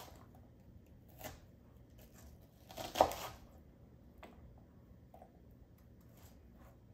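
Chef's knife chopping red onion on a cutting board: a few separate knocks of the blade on the board, the loudest about three seconds in, with fainter cutting sounds between.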